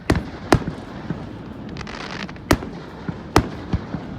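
Fireworks display bursting: about five sharp bangs spaced irregularly, with a spell of crackling about two seconds in.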